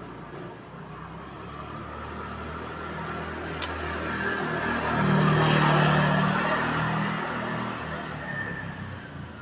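A motor vehicle passing by: its engine and road noise grow louder to a peak about six seconds in, then fade.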